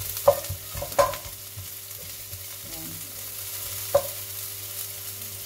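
Sliced onion and garlic sizzling in oil in a nonstick wok, sautéed until translucent, while a wooden spatula stirs them. The spatula knocks against the pan three times.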